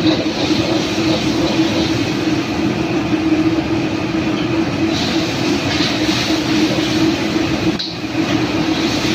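Steady loud roar of a commercial gas wok burner on full flame, with the kitchen's extraction running, while food is stir-fried in a wok with a metal spatula. The roar dips briefly a little before the end.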